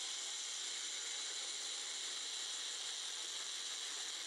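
Small handheld food chopper whirring steadily as it grinds onion into a paste.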